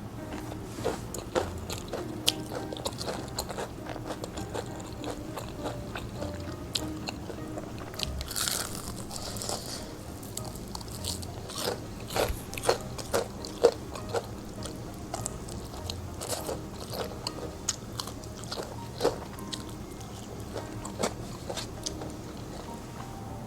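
Close-miked eating of crispy deep-fried chicken: irregular sharp crunches of the crust as it is bitten and chewed, loudest and thickest in the middle stretch.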